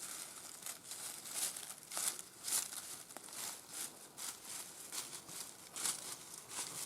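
Irregular crunching and rustling of dry leaf litter, several crunches a second.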